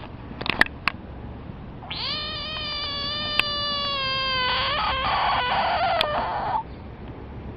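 Frog's distress call when threatened: one long yell of nearly five seconds, starting about two seconds in, its pitch sinking slightly and turning rough and raspy for the last two seconds before it cuts off. A few sharp clicks come before it.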